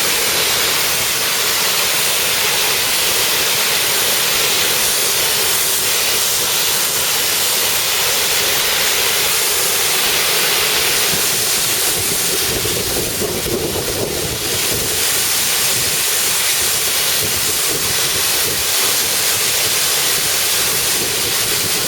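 Pressure washer jet spraying water onto a wall, a loud steady hiss whose tone changes about halfway through.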